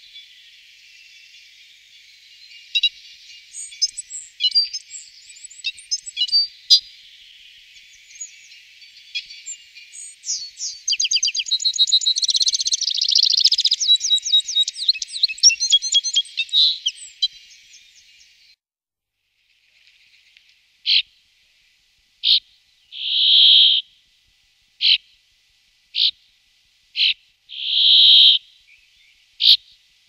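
Citril finch singing a fast, jingling twitter that is busiest in the middle. After a short pause it gives way to a brambling's short, spaced calls and two drawn-out buzzing notes.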